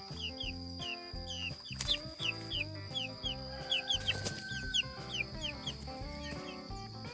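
Bangkok game chickens clucking over steady background music, with two sharp knocks about two and four seconds in.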